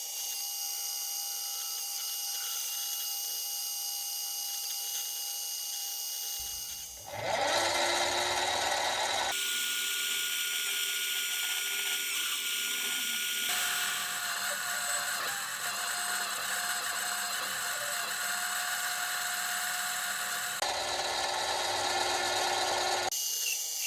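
Mini metal lathe running and cutting metal stock, a steady motor whine with the hiss of the cut. The sound changes abruptly several times, as separate machining passes are cut together.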